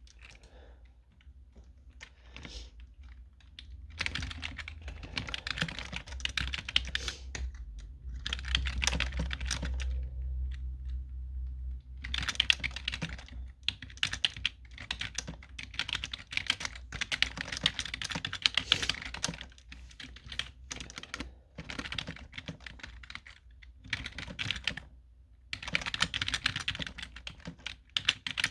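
Typing on a computer keyboard: a few scattered key clicks at first, then rapid runs of keystrokes broken by short pauses.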